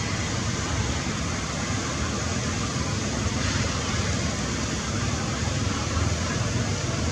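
Steady rushing noise with a low rumble, with no distinct events.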